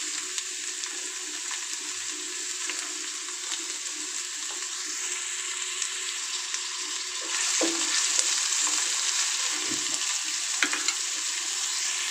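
Chopped onions sizzling in hot oil in a kadhai: a steady hiss with scattered crackles, growing louder about seven seconds in.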